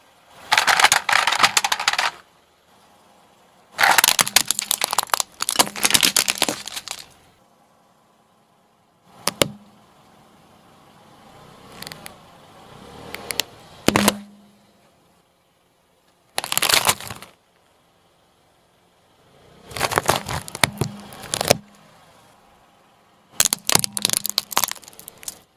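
A car tyre rolling over and crushing things one after another: about seven separate bursts of cracking and crunching, from plastic toys breaking and vegetables splitting, with short quiet gaps between.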